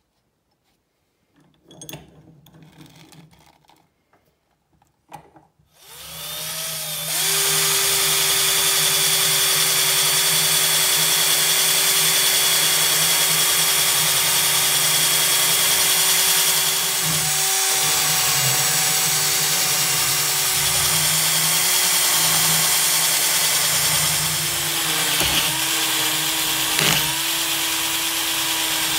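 A few quiet knocks as the wrench is set in the vise, then about six seconds in an electric drill spins up and runs steadily, driving a brass wire wheel brush that scrubs rust off an old open-end wrench.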